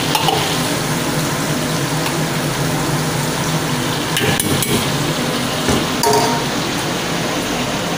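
Chicken pieces deep-frying in hot oil in a wok: a steady sizzle throughout. A few sharp metal knocks, a ladle against the wok, come about four to six seconds in.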